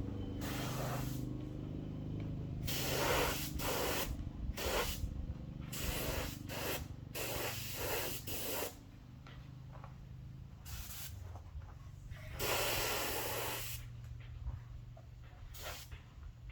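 Paint spray gun spraying in about a dozen short bursts of uneven length, the longest about a second and a half near the end, over a low steady hum.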